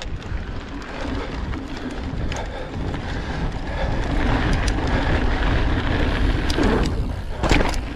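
Mountain bike riding down a dirt trail: tyres rolling over the ground and wind rushing on the microphone, growing louder as it goes, with a few sharp knocks and rattles.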